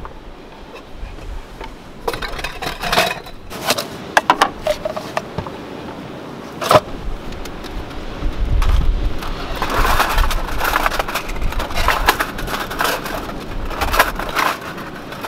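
Camping cookware being handled on a wooden board: clicks and knocks as a gas canister stove is set up, then a thin folding aluminium windscreen rattles as it is unfolded and stood around the stove. Wind rumbles on the microphone in the second half.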